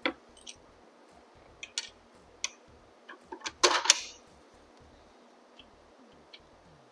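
Tools and metal bike parts clinking and knocking as a rear shock is being refitted. There are a few scattered single knocks, then a quick run of louder clanks about three and a half seconds in.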